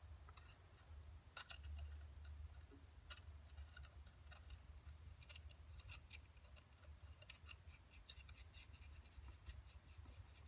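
Near silence with faint, scattered small clicks and taps of metal parts being handled as a connecting rod cap is fitted by hand onto a Norton Commando 750 crankshaft journal over a Plastigauge strip, with a steady low hum underneath.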